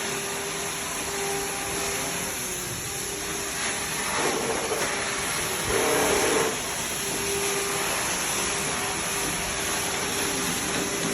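Workshop machinery running with a steady hiss and a faint hum. It grows louder briefly about four seconds in and again about six seconds in.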